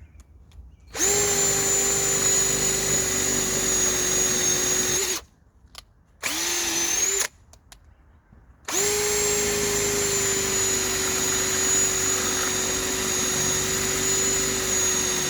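Bauer compact cordless hammer drill running as it drills a hole: a steady motor whine in three runs, about four seconds, then a one-second burst, then about six and a half seconds.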